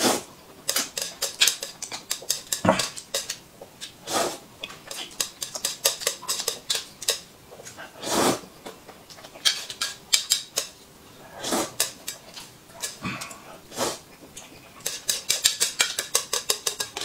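Noodles being slurped loudly from a plate in repeated noisy sucks, with one long slurp about eight seconds in and a quick run of short ones near the end.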